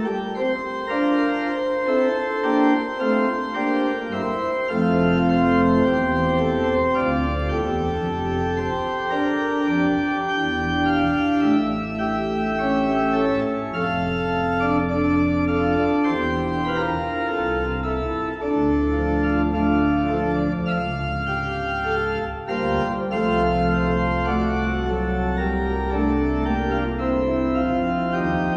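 Organ playing slow, held chords to close the service, with deep bass notes coming in about four seconds in.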